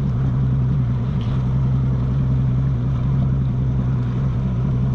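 Bass boat's Yamaha outboard running steadily at cruising speed, a constant low engine drone.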